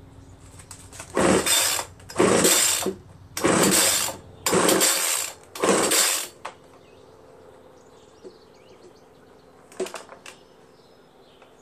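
Five quick pulls on the recoil starter rope of a Homelite two-stroke handheld leaf blower, about one a second, each a short whir of the rope and engine turning over; the engine does not catch. A couple of light knocks near the end.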